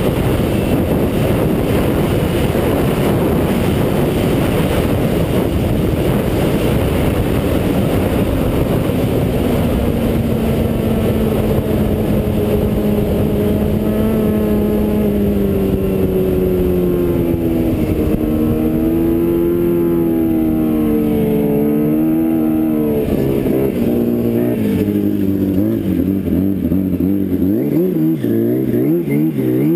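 Snowmobile engine running at speed, with the rush of track and wind. Its note sags slowly at first, then rises and falls again and again through the second half.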